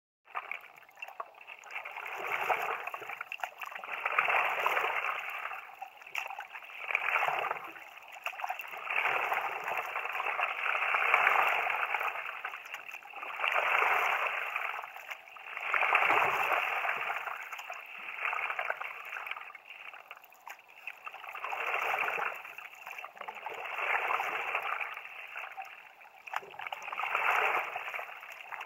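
Stand-up paddleboard paddle strokes through river water: the blade dipping and pulling, with water gurgling and splashing along the board. The sound swells with each stroke, about every two to three seconds.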